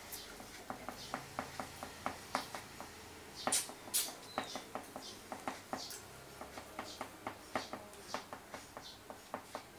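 Crayon scratching on paper in quick, short colouring strokes, a few a second, with two louder strokes near the middle.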